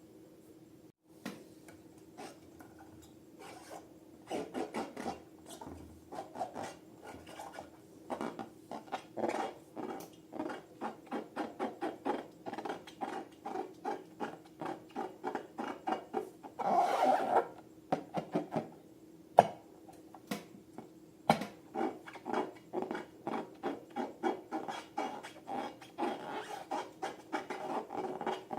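Slime being squished and poked by hand: a fast, uneven run of short wet clicks and pops, several a second, with one longer squelch about two-thirds of the way through.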